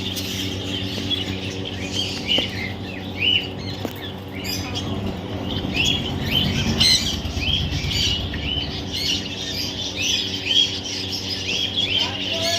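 Baby parrot chirping over and over in short, quick high calls, over a steady low hum.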